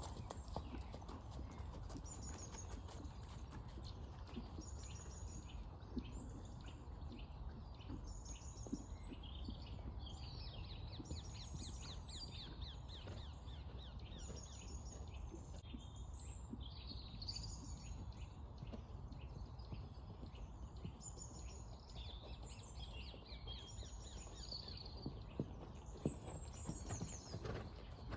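Hoofbeats of a ridden horse moving around a sand arena. They grow louder with a few sharp strikes near the end as the horse comes close. Birds chirp and trill throughout over a steady low rumble.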